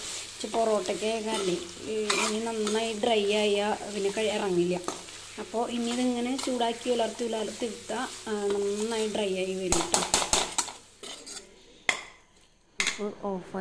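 Beef roast frying and sizzling in a steel pan as a spoon stirs and scrapes through it. About ten seconds in comes a quick run of sharp taps against the pan, then a brief lull.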